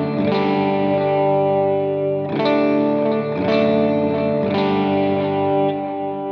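Gretsch electric guitar playing sustained chords through an amp-modeler preset with drive, delay and reverb. Chords are struck about four times and left to ring, and the last one fades out near the end.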